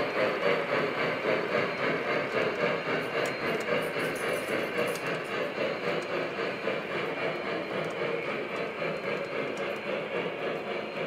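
Lionel Vision Line Big Boy O scale model steam locomotive and its passenger cars running past on three-rail track: a steady hissing rumble that pulses about two or three times a second.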